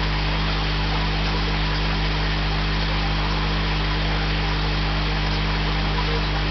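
Steady low electrical hum of running aquarium equipment with a hiss over it.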